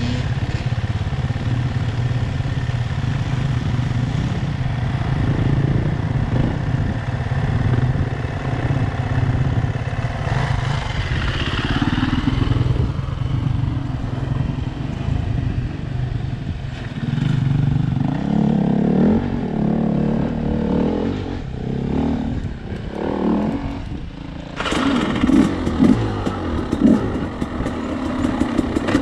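Husqvarna enduro dirt bike engine idling steadily while another dirt bike comes down the track toward it. About 25 seconds in the bike pulls away under throttle and the engine sound jumps up suddenly.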